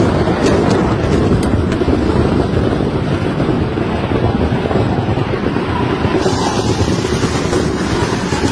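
Stock of fireworks going off in a burning fireworks shop: a dense, steady rumble with a few sharp cracks in the first two seconds.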